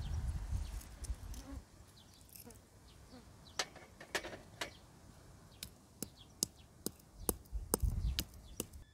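Sharp, irregular clicks and taps as green cardamom pods are dropped into a small mortar, with a pestle knocking in the mortar near the end. A low rumbling noise fills the first second or so and comes back near the end.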